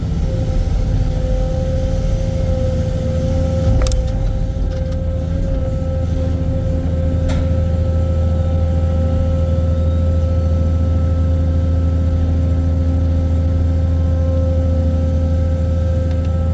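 Excavator's diesel engine running steadily with a deep rumble and a steady high tone on top. A sharp click about four seconds in and a fainter one about seven seconds in.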